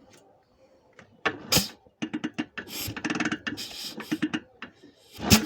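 IZh Planeta-5 single-cylinder two-stroke engine being turned over with the spark plug fitted. Starting about a second in, there are repeated compression puffs with a metallic knock on the compression stroke, which the mechanic takes for piston slap at reversal or a loaded wrist pin.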